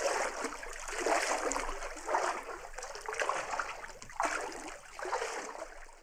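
Water splashing and trickling in rhythmic surges about once a second.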